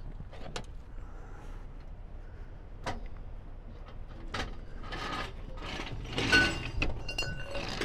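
Metal clanks, clicks and rattles of a 2-ton aluminum floor jack and its loose handle being worked under a van, the handle missing its retaining pin. About six seconds in comes a cluster of sharper metal clinks, one ringing briefly.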